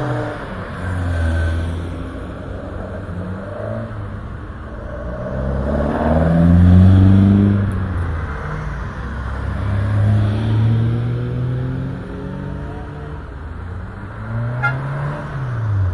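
Classic Ford cars driving past one after another, each engine's pitch rising and falling as it accelerates by; the loudest pass comes about six to seven seconds in.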